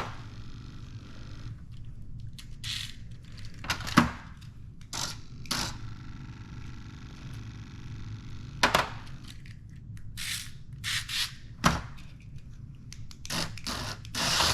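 Hexbug mini battle bots clashing: sharp plastic knocks, twice loud, and short scrapes as the small robots ram and shove each other.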